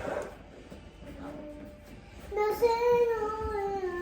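A young child singing one long wordless note that slides slowly down in pitch, starting about halfway through, after a single click at the start.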